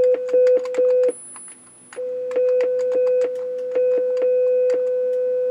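Amiga 1200 sounding a steady 500 Hz sine test tone, its loudness stepping up and down as the four sound channels are switched on and off, with the clack of keys being pressed. The tone cuts out about a second in and returns about a second later. The machine's audio output works after its audio capacitors were replaced.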